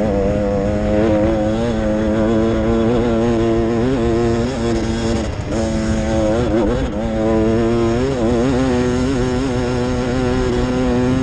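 Dirt bike engine heard from on board while riding, running at a steady high pitch with short dips and rises as the throttle is eased and reopened, about four and again about seven seconds in.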